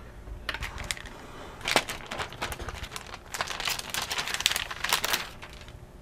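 Hands handling a laptop memory stick and the laptop's plastic underside as the stick is pulled from its slot: a run of small clicks, taps and rustles, busiest from about three to five seconds in.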